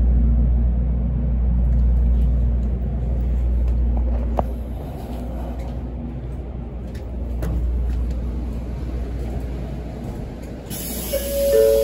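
Steady low rumble aboard an N700A Shinkansen standing at a platform, with a few light knocks. Near the end a hiss starts and a two-tone electronic chime begins, alternating between two pitches.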